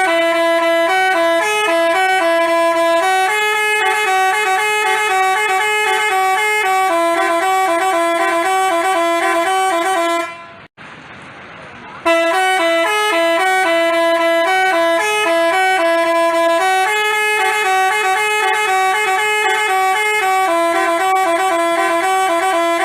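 Basuri telolet bus horn, a multi-tone musical horn, playing a tune of quick stepping notes. It breaks off about ten seconds in and starts the tune over a second and a half later.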